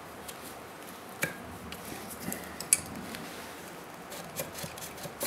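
Quiet metal-on-metal clinks and handling noise as a cylinder is slid by hand down over the piston and rings of a Kawasaki KLR650 single. There is a sharp click about a second in and a louder one a little before the middle.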